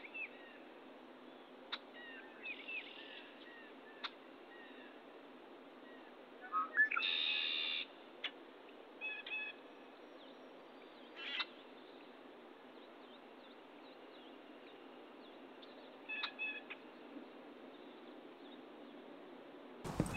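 Wild birds calling: scattered short chirps and a louder call lasting about a second around seven seconds in, over a faint steady hiss.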